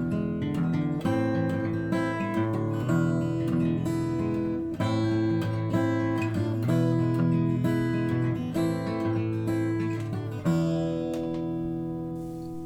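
Steel-string acoustic guitar playing an instrumental passage of chords with no voice. About ten and a half seconds in, a last chord is struck and left ringing, fading away.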